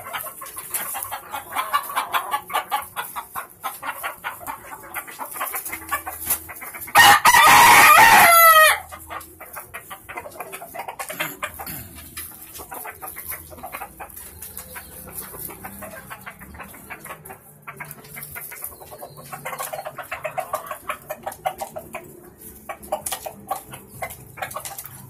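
A rooster crows once, loudly, about seven seconds in, a call nearly two seconds long that breaks into falling notes at the end. Around it, chickens cluck in short bursts.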